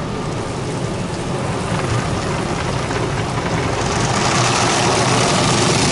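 Automatic car wash's spinning cloth top brush coming over the windshield, heard from inside the car: a steady rush of water and spray over a low hum, growing louder and harsher about four seconds in as the brush strips sweep across the glass.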